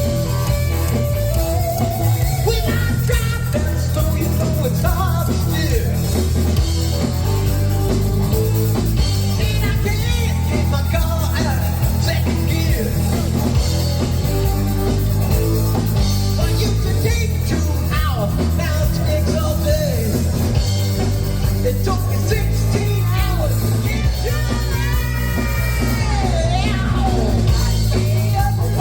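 Rock music with electric guitar and singing.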